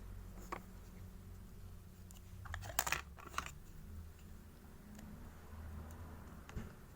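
A few light clicks and taps, with a cluster of sharper ones about two and a half to three and a half seconds in, from a sculpting tool and fingers working clay on a work board, over a low steady hum.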